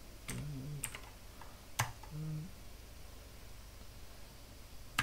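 A few separate computer keyboard keystrokes: three in the first two seconds, the third the sharpest, and another near the end.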